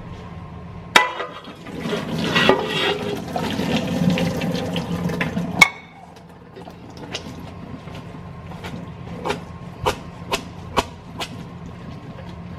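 A pot of ramen cooking water poured out through a metal strainer into a stainless steel sink. It starts with a sharp metal clank, rushes for about four and a half seconds, and stops with another clank, followed by several light metal clinks.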